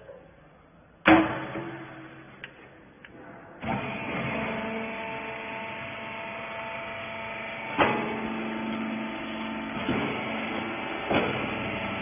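A loud bang about a second in as the steel lid of a 10 kg rag baler's loading chamber is shut. From about three and a half seconds the baler's electric motor runs with a steady hum while it presses the rags, with a sharp clank near eight seconds and two more later.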